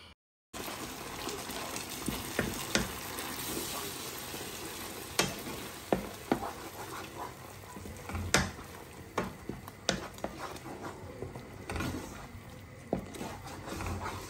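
Blended tomato mixture sizzling in a frying pan on top of the onions, stirred with a spoon that knocks and scrapes against the pan a dozen or so times.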